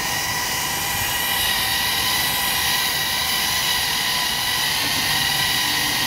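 Skydio R1 quadcopter drone in flight: a steady propeller whine of several even tones over a rushing noise.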